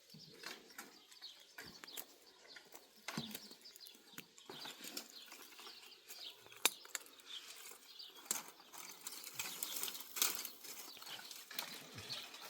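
Irregular rustling with scattered light clicks and knocks, as of branches and brush being handled during garden fence work, with one sharper click roughly midway.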